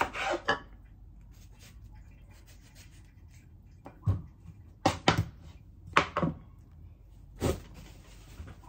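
Knife slicing a tomato on a cutting board: a few sharp, irregularly spaced knocks of the blade against the board, most of them in the second half.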